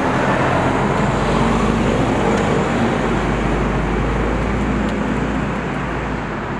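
A bus engine running amid road noise, its pitch shifting a little and easing off slightly near the end.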